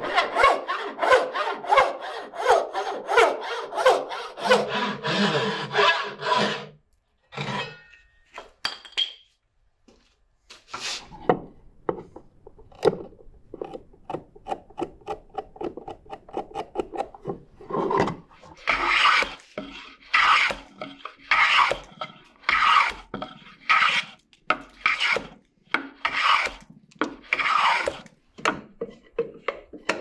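A small hand tool scraping and rasping on hardwood in repeated strokes. Fast strokes for the first six seconds or so, a lull with a few light scratches, then slower, evenly spaced strokes over the last ten seconds.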